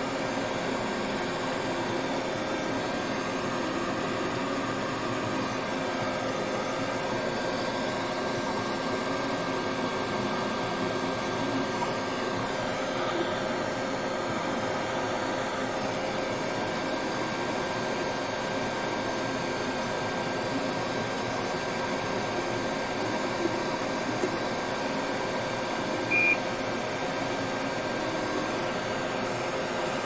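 Steady whirring hum of a running fan motor, with one short high-pitched beep a few seconds before the end.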